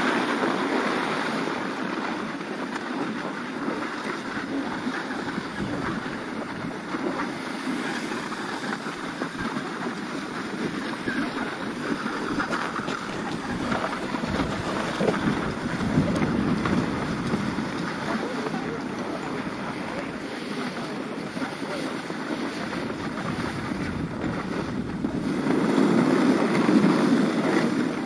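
Skis sliding and scraping over groomed, packed snow, with wind buffeting the microphone. Louder for a couple of seconds near the end.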